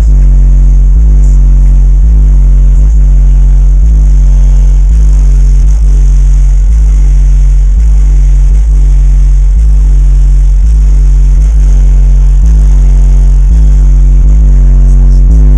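Four AudioQue HDC 18-inch subwoofers playing a deep bass line at very high volume, the notes changing roughly every second.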